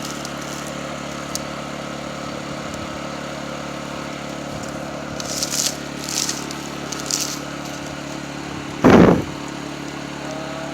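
A steady, engine-like mechanical hum, with a few short scraping sounds in the middle and one loud thump near the end.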